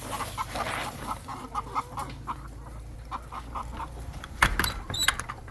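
Domestic hens clucking in a run of short repeated notes. Near the end, a loud knock and a brief high squeak as a sticking door is forced open.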